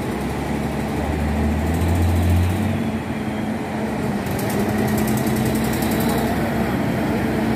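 Diesel engine of a double-decker coach running as the bus drives slowly past close by, with a deep engine hum that is strongest a second or two in.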